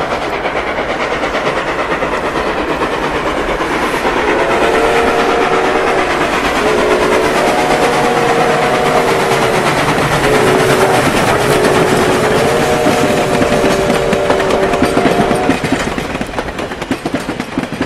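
Train running on the rails with a dense, rapid clatter, while a chime train whistle of several notes at once sounds a series of long blasts from about four seconds in until near the end. The sound fades out at the very end.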